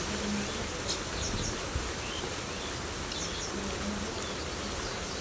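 Outdoor rural ambience: a steady even hiss of background noise, with scattered faint, short high chirps.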